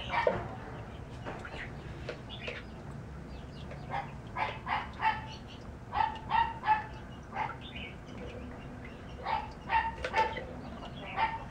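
Short animal calls, several in quick succession, coming in a few clusters over a faint low steady hum.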